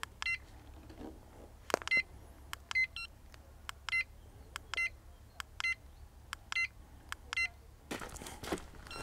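Short electronic beeps, repeating a little under once a second, from the New Direction Tackle Bait Boat 2's handheld remote; the owner takes this constant beeping for a weak battery. A faint click comes just before each beep, a louder click about two seconds in, and a rustling noise near the end.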